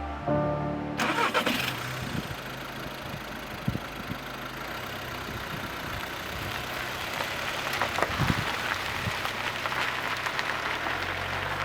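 A motor vehicle's engine starting about a second in and then running steadily, with scattered clicks and knocks over it.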